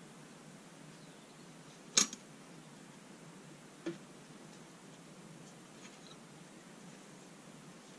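Steel rule being handled on the steel frame pieces: one sharp metallic clack about two seconds in, a softer knock about two seconds later, and a few faint ticks near the end.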